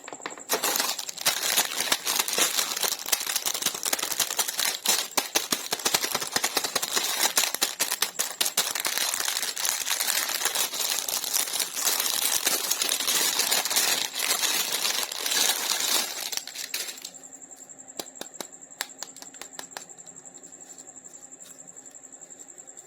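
Toy packaging being handled and opened: dense crinkling and clicking for most of the stretch. It stops about 17 seconds in, leaving a faint steady high whine with regular ticks.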